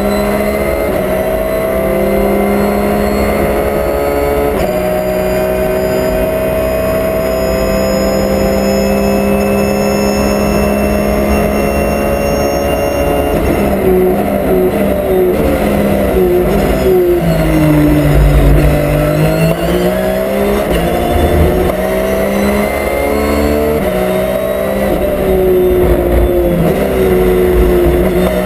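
Porsche race car's engine heard from inside the cockpit under hard running. Its pitch climbs through the gears with a sudden step about five seconds in, drops in quick stages around the middle as the car brakes and downshifts, bottoms out through a slow corner, then climbs again through more upshifts.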